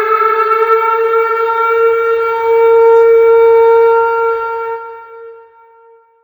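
Tornado warning siren sounding one long, steady wail at a held pitch, then fading away about five seconds in.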